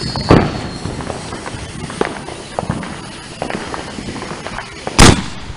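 A lit firework fuse burning, with scattered light clicks, then about five seconds in a single loud firework bang as it goes off.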